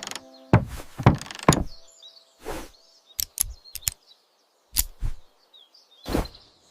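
A string of irregular knocks and thumps, about ten spread unevenly, with faint bird chirps between them.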